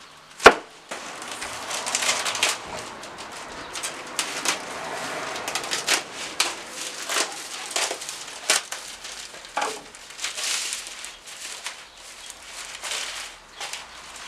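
A sharp knock of wooden boards set down on a workbench about half a second in, then clear plastic wrapping film rustling and crinkling as it is pulled off a stack of boards.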